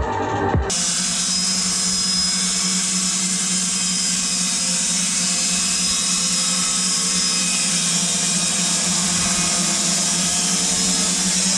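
Sawmill machinery running steadily: a constant hum with a wash of hissing noise over it. In the first split second, a rising electronic sweep from background music cuts off.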